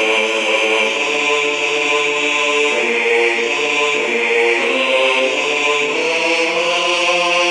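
Computer score playback of a four-part choir singing a hymn-like carol without words, in slow, sustained chords that change one after another. It is a part-rehearsal track for the carol's bass line.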